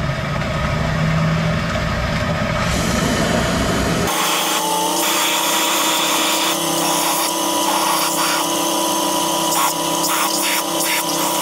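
Power tools running: a low rumbling machine for the first few seconds, then, after an abrupt change about four seconds in, a steadier higher machine whine with a constant tone and several short bursts near the end.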